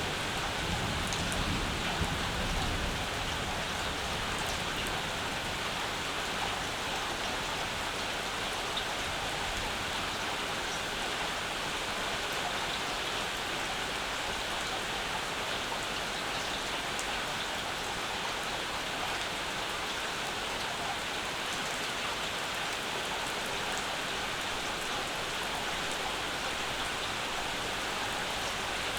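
Steady rain falling, with the tail of a low thunder rumble dying away in the first few seconds.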